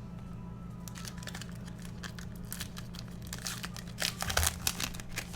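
A baseball card pack's wrapper being torn open, crinkling and tearing in a run of quick crackles that starts about a second in and is loudest near the end.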